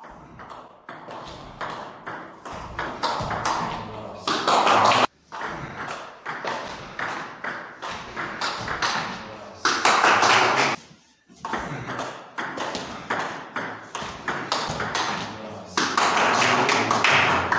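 Table tennis rally: the ball clicking sharply off paddles and table in quick runs, heard three times over. Each run ends in a louder burst about a second long.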